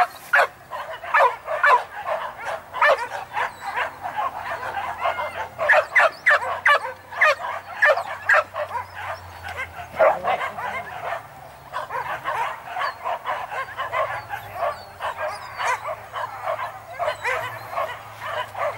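A pack of hunting dogs on a wild boar hunt barking and yelping in rapid, overlapping calls, several dogs at once and without letting up.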